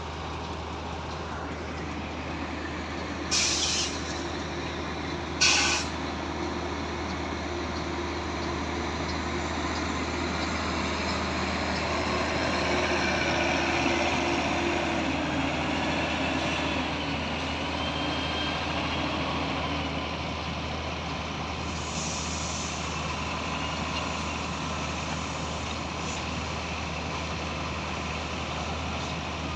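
Heavy diesel engine of concrete-pouring machinery (the concrete pump or a transit mixer truck) running steadily. Short sharp hisses of released air come twice a few seconds in and again later, and the engine swells with a rising whine for a few seconds in the middle.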